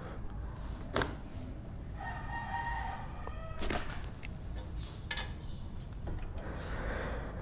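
A rooster crows once, a little over a second long, about two seconds in. A few sharp clicks from hand tools come about a second in and twice more later.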